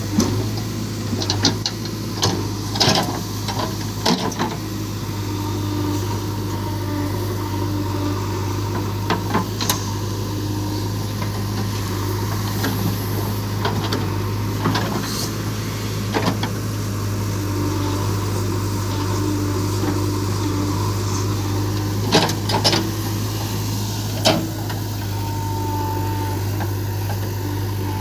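Diesel engine of a backhoe loader running steadily during loading work, with occasional sharp knocks and clanks, several in a cluster near the start and again near the end.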